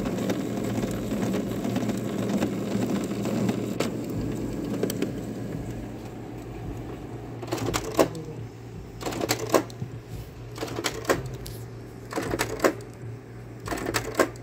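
Canon G3070 inkjet printer's feed mechanism running with a steady motor whir, then a short clattering burst about every second and a half. The roller keeps turning without taking in the paper.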